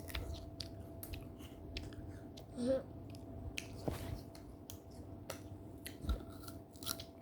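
A person chewing and biting into cold fruit close to the microphone: irregular small crunches and wet mouth clicks, with a short hum of the voice about two and a half seconds in.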